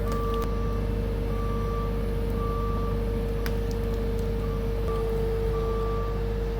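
An engine running steadily with a low rumble and a constant whine, plus a higher tone that cuts in and out irregularly.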